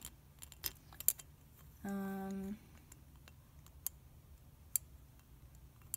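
A few sharp, scattered clicks and taps of small doll accessories being handled and set down, the loudest about a second in. About two seconds in, a girl's voice gives one short, level 'mm'.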